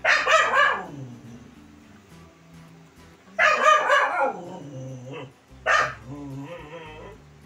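Young white puppy barking: three loud drawn-out barks, each falling in pitch, at the start, about three and a half seconds in and near six seconds, followed by a softer wavering whine.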